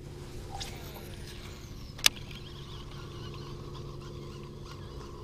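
Electric bow-mounted trolling motor running with a steady low hum, and a single sharp click about two seconds in.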